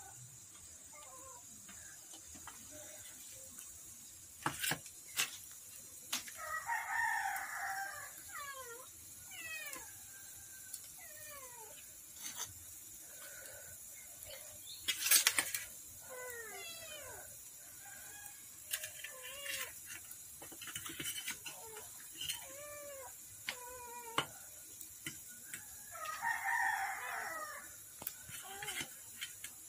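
A rooster crowing twice, about seven seconds in and again near the end, among many short chirping calls from fowl. A few sharp clicks and knocks cut in, the loudest about halfway through.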